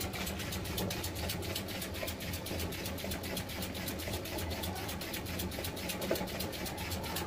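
Homemade two-cylinder steam engine, its cylinders made from motorcycle shock absorbers, running steadily on steam. It gives a quick, even chuffing and clicking at about five or six beats a second over a low steady hum.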